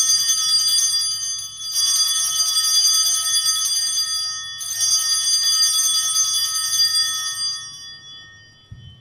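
Altar bells rung at the elevation of the consecrated chalice: a bright ringing of many high tones, shaken afresh about two seconds in and again about four and a half seconds in, then fading out near the end.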